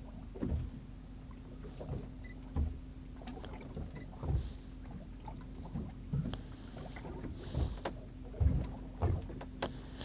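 Small waves slapping against the hull of a fishing boat, irregular low knocks and splashes every second or so, over a steady low hum.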